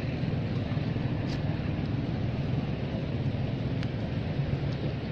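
Steady low rumble of outdoor background noise, with a couple of faint clicks.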